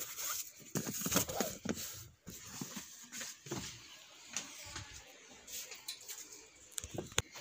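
Belongings being handled and pulled out of a small car's cabin and cargo area: irregular rustling and scraping with scattered knocks, and a sharp click about seven seconds in.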